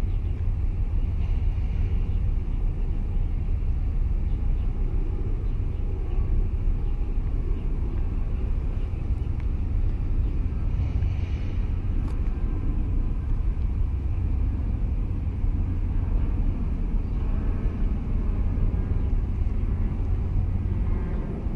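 Steady low rumble of wind buffeting the microphone, with faint splashes of water against the quay wall about a second in and again around eleven seconds.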